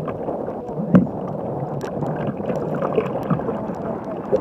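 Choppy sea water sloshing and splashing against the hull of a Jackson Cuda 14 sit-on-top kayak in rough water, with scattered small slaps and one sharp knock about a second in.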